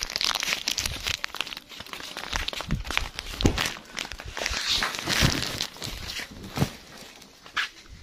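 Plastic packaging crinkling and rustling in an irregular run of crackles as parcels are handled.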